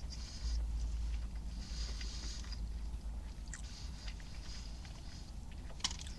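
A person chewing a mouthful of burger close to the microphone, with a few wet mouth clicks and a sharper click near the end, over a steady low rumble.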